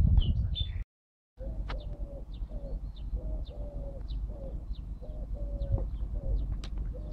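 A spade scraping and digging in soil, cut off abruptly about a second in by half a second of dead silence. Then birds calling outdoors over a low wind rumble: a repeated short mid-pitched note and quick high chirps, a few each second.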